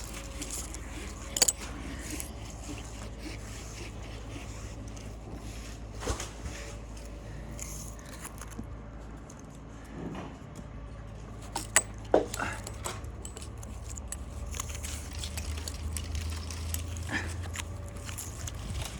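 Metal climbing and rigging hardware clinking and jangling while a rope is tied off in the tree, with scattered sharp clicks and knocks, the loudest about a second and a half in and around twelve seconds in, over a steady low rumble.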